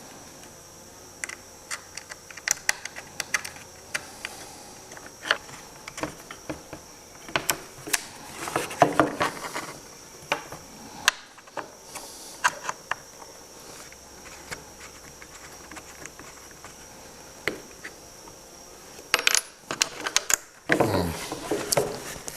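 Small steel machine screws and a hex wrench clicking and clinking as they are handled and driven into polymer side rails: scattered sharp metallic ticks, bunched in a couple of busy spells, with a brief rustle of handling near the end.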